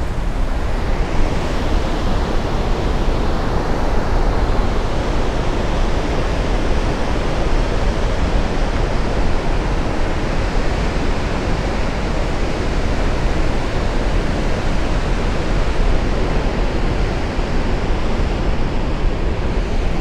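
Water released through a dam's partly opened spillway gates, pouring down the spillway and churning in the river below with a loud, steady rush.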